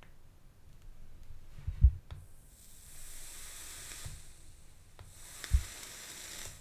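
Dual coils of a Hellvape Dead Rabbit 3 RDA firing on a box mod twice: the juice-soaked wicks sizzle on the hot coils with a steady hiss, the first firing over a second long and the second cutting off at the end. A sharp low thump comes just before the first firing and another during the second.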